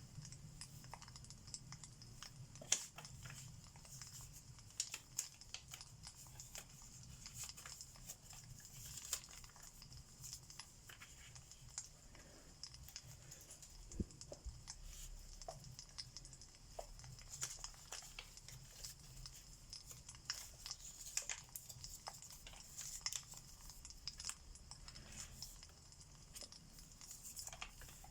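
Fireplace crackling: irregular snaps and pops over a low, steady rumble, with one sharper pop about halfway through.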